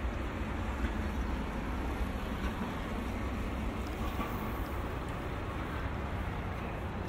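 Steady outdoor city ambience at a waterfront: an even low rumble with a constant hiss and no distinct events.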